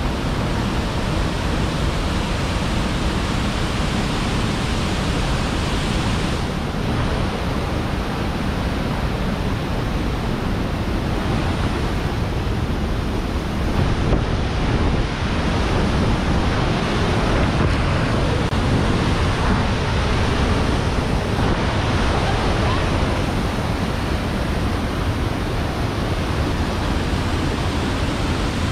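Steady rushing roar of a mountain waterfall and its cascading creek, unbroken throughout.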